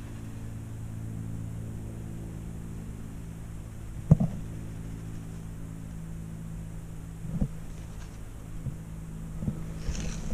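Steady low hum of a distant motor, with a few faint knocks, the loudest about four seconds in.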